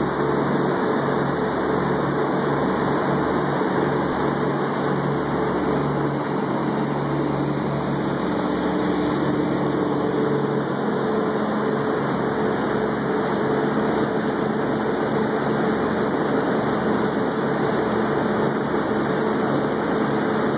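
Engines of a 34-foot Albemarle sportfishing boat running steadily under way: a constant drone under a rush of wake water and wind.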